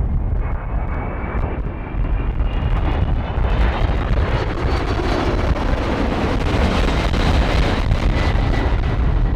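Jet airliner passing close by, its engines giving a thin whine that rises slowly in pitch over a heavy low rumble. The sound swells toward the middle and later part, with wind buffeting the microphone.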